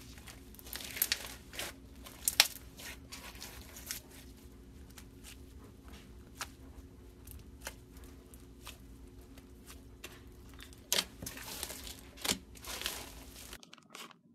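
Blue bead-filled slime stretched, squeezed and pulled apart by hand, giving an irregular run of small crackles and pops. The crackling is louder about a second in and again in several bursts near the end, then stops suddenly.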